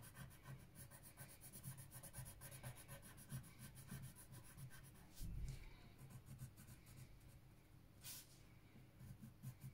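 Faint scratching of a coloured pencil shading on paper in rapid back-and-forth strokes. A dull low thump comes a little past halfway, and a single short scratch sounds near the end.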